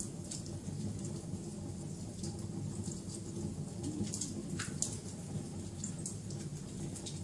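Wood fire crackling: frequent sharp pops and snaps over a steady low rumble, with one fuller pop a little past the middle.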